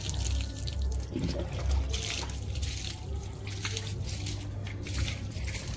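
Water splashing and dripping as it is scooped and poured by hand over a wet dog's coat during a bath, in uneven small splashes over a steady low rumble.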